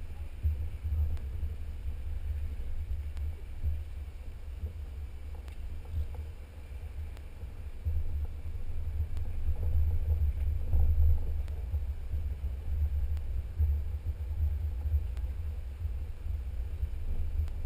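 Low, uneven rumble of a Jeep driving slowly along a rough dirt trail, picked up by a camera on its hood, with wind buffeting the microphone.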